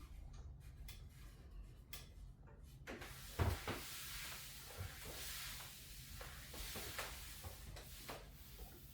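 Soft knocks and shuffles of a patient's body and the chiropractor's hands on a chiropractic table, with a louder thump about three and a half seconds in. After the thump comes a long breathy exhale lasting several seconds, the patient letting out a deep breath on the chiropractor's cue.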